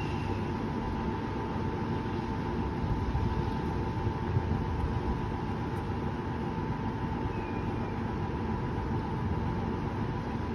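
Steady rumble and hiss of distant city traffic, with a faint steady hum above it.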